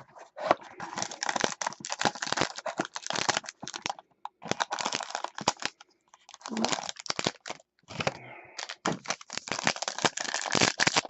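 Football trading card boxes and packs being torn open: crinkling, crackling plastic wrap and tearing packaging in a run of short rips and rustles with a few brief pauses.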